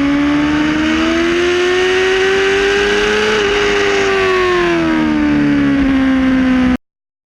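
Honda Hornet 600 inline-four engine through a Mivv Double Gun exhaust, pulling up through the revs for about three and a half seconds and then easing back down as the throttle closes, over wind and road noise. The sound cuts off suddenly near the end.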